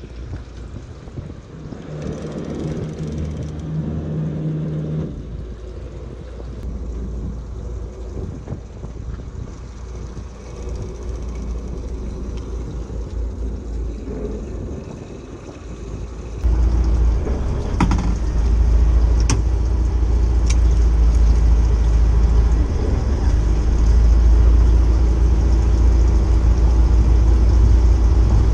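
Fishing boat's engine running steadily with wind and water noise; about halfway through the low engine hum jumps suddenly much louder and stays there.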